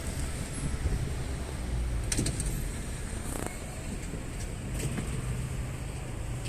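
City street ambience: a steady low rumble of traffic, with a few short, sharp clicks or knocks about two, three and a half, and five seconds in.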